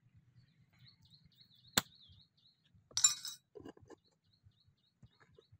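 A single sharp click about two seconds in, then a brief clatter a second later, over faint, intermittent high-pitched chirping.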